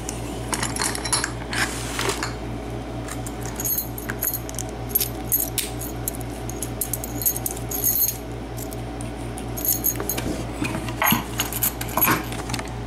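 Small metallic clicks and clinks of a Trelock euro cylinder lock and its keys being handled: a key worked into the cylinder and the keys on their ring jingling, over a steady low hum.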